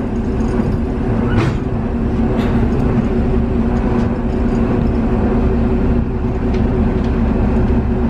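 The train's diesel engine runs steadily with a low hum, heard from inside the passenger car as the train pulls slowly away from a station. A few light clicks come in the first few seconds.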